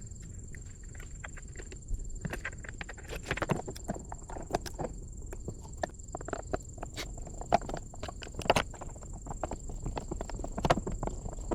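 Irregular light knocks and clicks of hand work with tools and small metal parts, busier from about two seconds in, over a faint steady high-pitched whine.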